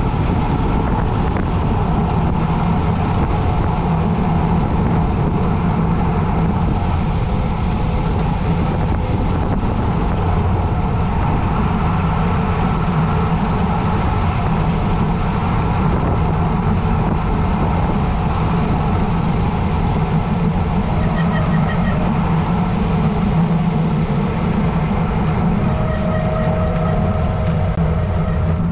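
Wind rushing over the microphone of a camera on a bicycle descending a road at speed: a loud, steady rush of noise, heaviest in the low end.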